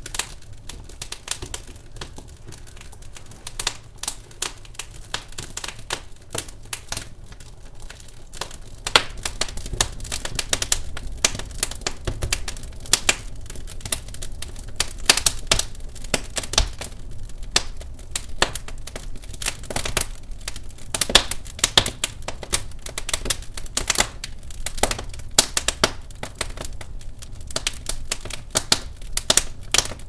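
Douglas fir logs burning in a fireplace, crackling with irregular sharp pops and snaps. The pops grow louder and more frequent about a third of the way in.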